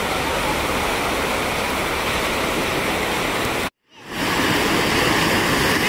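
Small ocean waves breaking and washing up the shore, a steady rushing hiss. It cuts out for a moment about three and a half seconds in and comes back a little louder.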